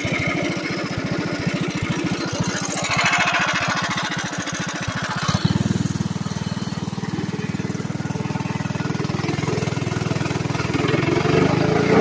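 Modified Predator 212 Ghost single-cylinder engine with an aftermarket exhaust, idling with separate, even firing pulses. About five seconds in it picks up to a faster, steadier run, and it gets a little louder near the end as the trike starts to move off.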